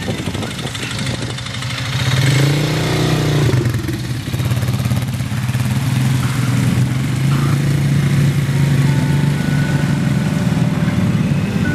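Small ATV (quad) engine revving, its pitch rising and falling a few seconds in, then running at a steady pitch under load as the quad drives through shallow water.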